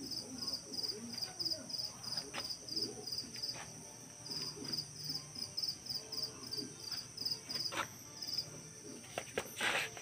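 A cricket chirping in a steady, even rhythm of about two to three high chirps a second. It pauses briefly near the middle and stops near the end, over a thin, steady high insect whine. Scattered clicks and a louder rustle near the end come from lettuce leaves being handled.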